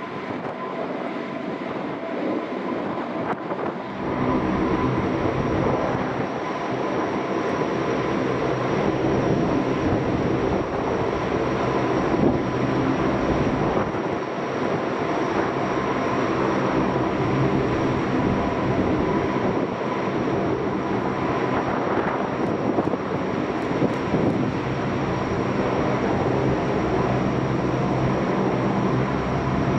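Four-engine turboprop patrol aircraft of the P-3 Orion family, with Allison T56 engines and propellers, running steadily with a whining tone; the sound gets louder about four seconds in and then holds.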